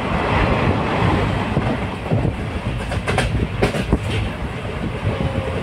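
Train running along the rails: a steady rumble with a few sharp clicks of the wheels over rail joints a little past the middle.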